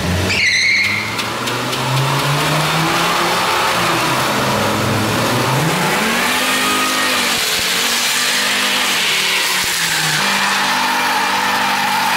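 2002 Volvo V70 doing a burnout and donuts on a concrete floor: tyres squealing as they spin, with the engine revving up and down several times. Near the end the engine is held at a steadier pitch.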